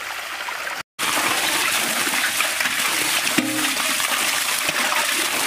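Water gushing from an open pipe and splashing onto rocks and into a large metal pot held under the stream for rinsing. A brief break in the sound about a second in, after which the splashing is louder.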